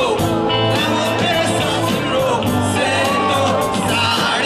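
Live rock band playing: electric guitar and drum kit under sung vocals, loud and continuous.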